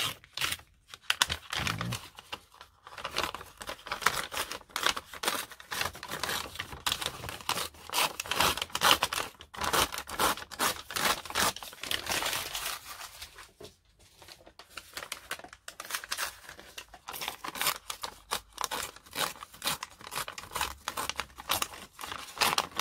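Sheets of paper being handled close up: rustling, crinkling and tearing in a dense run of short, scratchy strokes, with a brief lull a little past halfway.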